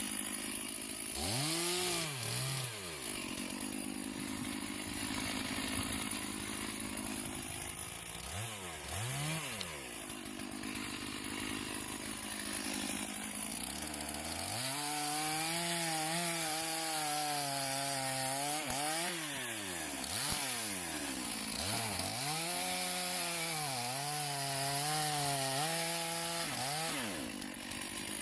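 Two-stroke chainsaw cutting a felled tree trunk into firewood lengths. The engine pitch rises and falls again and again as the throttle is opened and eased off, holding high and steady during the cuts.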